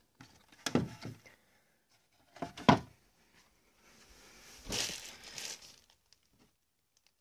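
Handling noise of a plastic reptile rack tub being opened: a few knocks and clunks, the loudest about three seconds in, then a short scraping rustle about five seconds in.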